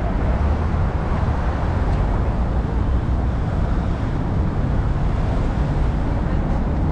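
Steady city street traffic noise, a continuous low rumble of passing cars.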